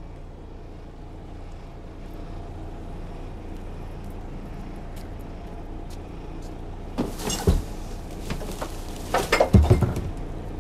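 Garbage truck's diesel engine idling with a steady low rumble. About seven seconds in come sharp bursts of hiss and clanking, and near the end several heavier metallic bangs.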